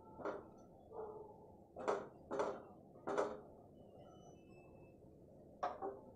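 Wooden spatula scraping and knocking against a non-stick frying pan while stirring pieces of tamarind frying in a little oil: about six short strokes at uneven intervals, with a longer gap before the last one near the end.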